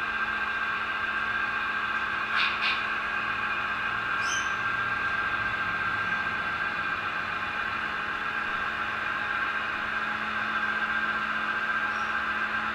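HO scale model diesel locomotives pulling a train, a steady hum of several fixed tones. There is a short high squeak about four seconds in.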